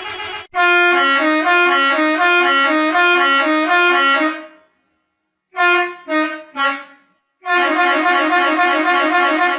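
Musical bus horn with several reed-like trumpets playing a tune: a fast alternating two-note phrase for about four seconds, then three short falling notes, then a held chord near the end.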